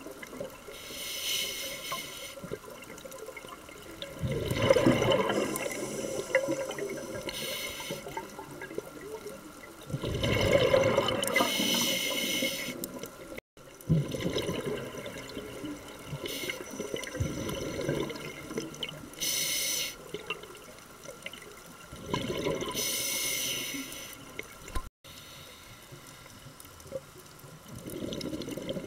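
Scuba diver breathing through a regulator underwater: a hiss on each inhale, then a louder burst of exhaled bubbles, repeating every several seconds.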